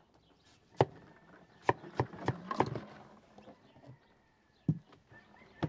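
Kitchen knife cutting a watermelon on a wooden cutting board, the blade knocking sharply against the board at irregular moments: a quick cluster of knocks between about one and three seconds in, and two more near the end.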